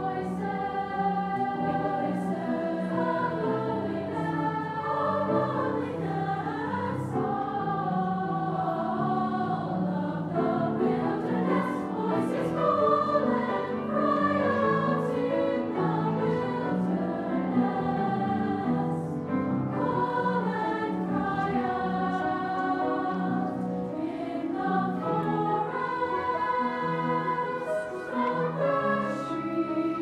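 Youth choir singing a slow piece in sustained, held phrases, accompanied by piano.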